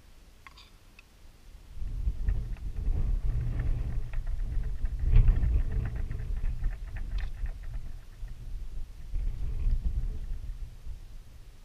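Wind gusting on the microphone: a low rumble that comes up about two seconds in, swells and eases, and dies down near the end. Faint light clicks of a utensil against a metal pan sound over it.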